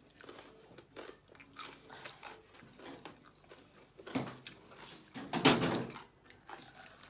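Close-up chewing, with small clicks of clam shells being handled, while spicy stir-fried clams are eaten by hand. A louder, noisy sound comes about four seconds in and again, louder and longer, at about five and a half seconds.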